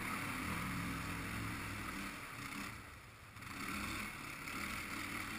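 Zanella quad ATV engine running as it fords a shallow stream and climbs the bank, with water splashing around the wheels. The engine sound dips about three seconds in, then picks up again.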